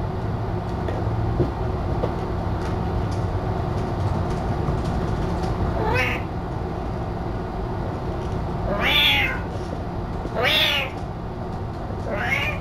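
A cat meowing four times at uneven intervals, the middle two calls the loudest, over a steady low hum.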